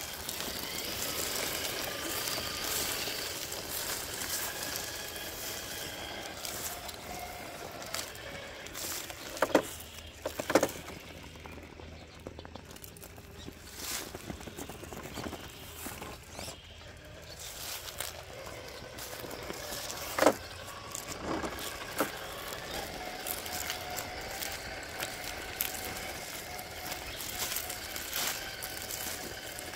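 Traxxas TRX4 RC crawler's Hobbywing AXE brushless motor and drivetrain whining, the pitch drifting with the throttle as the truck crawls over rock. Four sharp knocks in two pairs, about a third and two thirds of the way through, from the truck against the rocks.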